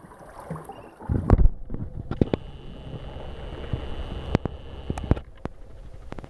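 Small boat riding on open sea: a steady low rumble with wind on the microphone, several sharp knocks, and a loud gust about a second in.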